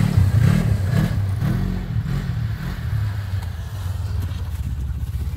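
Snowmobile engines running: in the first two seconds one revs up and down as the sled rides off, over a steady low drone from an idling snowmobile that carries on after the revving eases.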